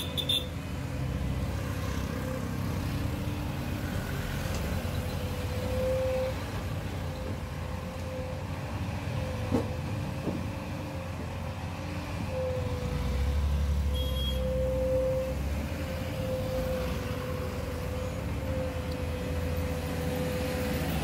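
Volvo crawler excavator's diesel engine running under load as it digs, swings and dumps gravel, with a steady whine over the rumble. The engine grows louder for a few seconds just past the middle, and a brief knock comes near the start.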